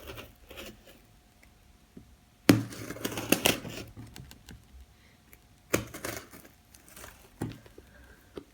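A blunt knife cutting and tearing at a heavily wrapped cardboard parcel: a loud burst of scraping and rustling about two and a half seconds in, then a couple of sharp knocks and quieter handling.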